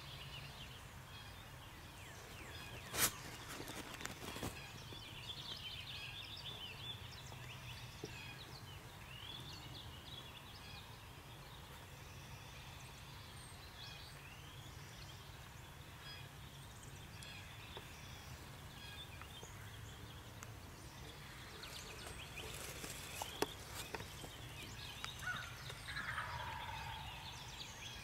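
Quiet spring woods with songbirds chirping. A sharp click comes about three seconds in, and a few soft clicks and rustles come later. Near the end a wild turkey gobbles once.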